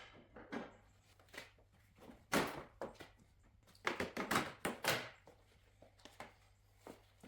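Plastic body trim and clips being prised off a car's front end: irregular clicks, knocks and scraping, loudest about two seconds in and again around four to five seconds in.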